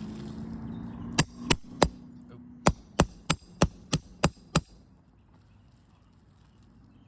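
Roofing hammer tapping on asphalt shingles: ten sharp taps, three and then a quicker run of seven at about three a second, a light tapping test of a brittle roof's shingles for granule loss and creasing. A faint steady hum fades out partway through.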